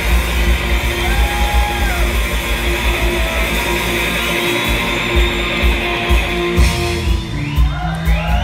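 Live rock band playing: electric guitar, bass guitar and drum kit together. The cymbal wash drops away near the end while the drums and bass carry on.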